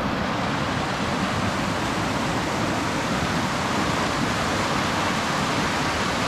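Waterfall rushing steadily: an even, unbroken wash of water noise.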